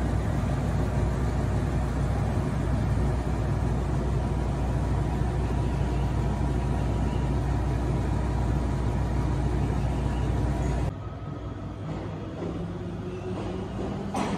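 Diesel railcar engine idling with a steady low hum. About eleven seconds in, this gives way abruptly to a quieter diesel railcar engine whose note rises slightly as the train begins to pull away, with a short click near the end.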